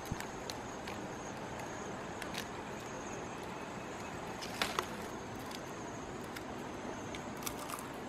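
Steady outdoor background hiss with a faint, thin high insect drone, and a few small clicks and taps scattered through it, the loudest pair about four and a half seconds in.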